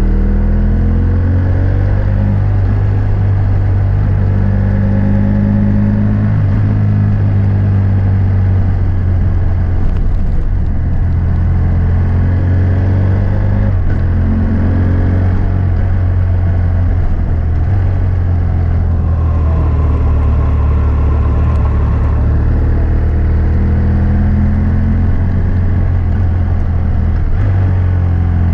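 BMW F800S parallel-twin engine running through a GPR Furore aftermarket exhaust with its dB-killer fitted, heard from the moving motorcycle. The engine note climbs and drops back several times as the rider works the throttle.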